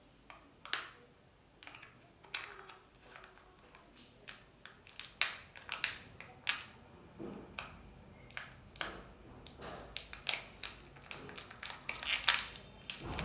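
Kinder Joy toy wrapper being handled and pulled open by hand: an irregular run of sharp crinkles and crackles, with louder ones about halfway through and near the end.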